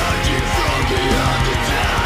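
Heavy metal band playing: distorted electric guitars over bass and drums with a fast, even beat.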